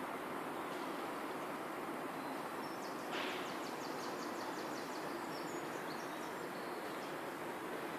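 Steady outdoor background noise, with a small bird calling a quick run of high, evenly spaced chirps, about five a second, for roughly two seconds near the middle. A brief rustle comes at the start of the chirping.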